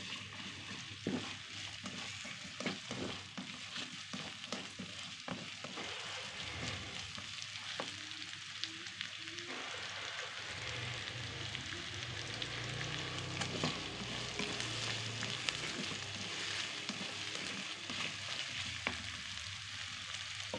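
Minced garlic and chopped onion sizzling in hot oil, being sautéed so the garlic releases its aroma. The sizzle is a steady hiss, with frequent clicks and scrapes of the stirring utensil against the pan, most of them in the first several seconds.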